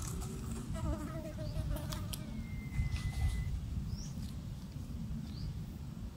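An insect buzzing briefly, a wavering drone starting about a second in and lasting a second or so, over a steady low rumble; a thin whistle-like tone falls slightly a couple of seconds in.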